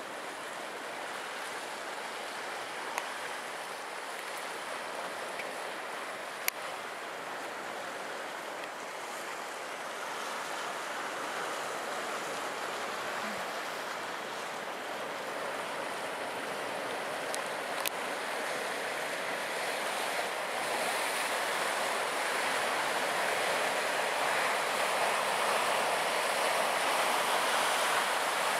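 Sea surf washing and breaking over rocks at the foot of a cliff: a steady rushing that grows louder over the second half. A few light clicks sound over it.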